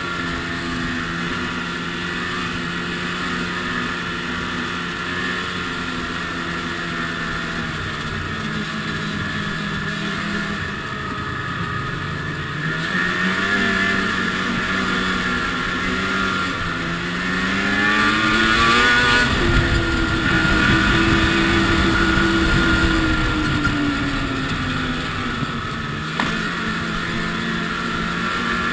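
Ski-Doo MXZ snowmobile's two-stroke engine running at a steady cruise, dipping and picking up a little, then revving higher and louder about two-thirds of the way in before easing back off near the end.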